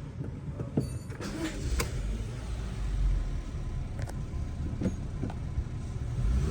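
Honda City 1.2-litre petrol engine running at idle, a steady low hum, with several short sharp clicks scattered through it.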